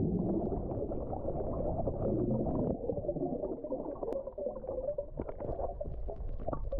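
Muffled churning and gurgling of a mass of air bubbles, heard from under water, with a few small crackling pops towards the end.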